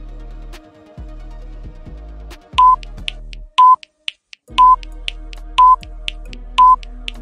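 Quiz countdown timer beeping: five short, high, identical electronic beeps, about one a second, over background music with a steady bass line.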